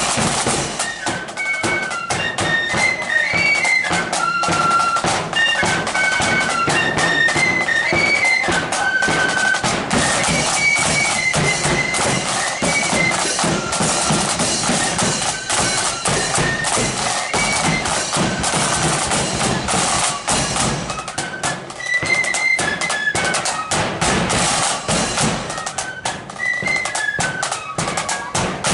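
Marching flute band playing: a flute melody over rapid snare drumming and a bass drum beat. The flute tune is plainest in the first half and comes through again briefly near the end, while the drumming carries on without a break.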